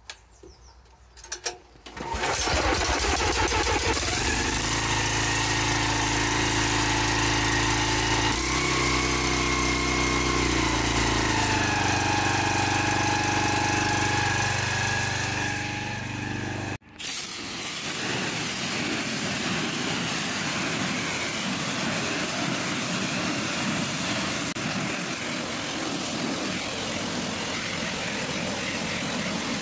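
Petrol pressure washer (Kiam KM3700PR) engine starting about two seconds in, then running steadily, its revs shifting a couple of times as the throttle is set. After a sudden break partway through, the sound changes to a steady hiss of the high-pressure jet spraying onto wooden decking, with the engine running underneath.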